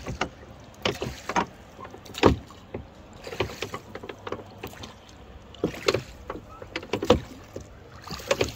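Wooden rowing boat being rowed: irregular sharp knocks and clunks of the wooden oars working in their metal rowlocks as they are pulled through the water.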